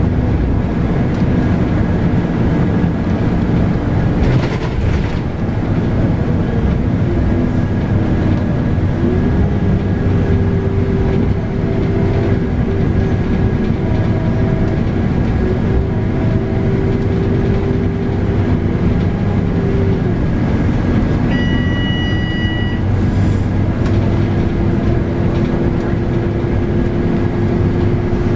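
Scania K310UB bus under way: its 8.9-litre five-cylinder DC9 diesel and ZF Ecomat six-speed automatic give a steady rumble with road noise and a whine that shifts pitch a few times. About 21 seconds in, a short electronic beep sounds for just over a second, and a brief knock comes a few seconds in.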